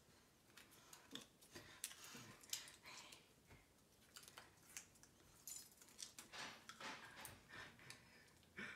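Faint crinkling and small clicks of foil-wrapped chocolate coins being handled and cut. The clicks and rustles are scattered and irregular.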